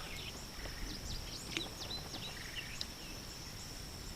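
Birdsong: a quick run of varied chirps and whistled notes during the first three seconds, over a steady high-pitched drone.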